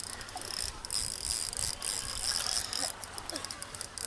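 Spinning fishing reel being wound by hand, a fast clicking whir that stops and starts several times.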